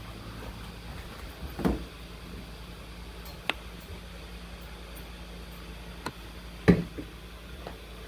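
Steady low hum with a few handling knocks and clicks: one knock about one and a half seconds in, a sharp click midway and a louder knock a little before the end.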